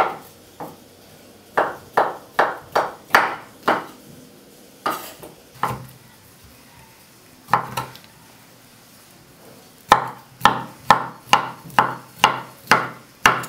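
Knife chopping sausage into cubes on a wooden cutting board: sharp knocks of the blade on the board in short runs, with a few single cuts in the middle and a quick run of about ten chops near the end.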